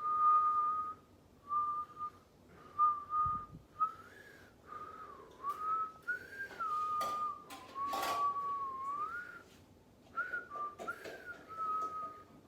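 Whistling: a clear single-pitched whistle in short phrases, holding notes and sliding up and down between them.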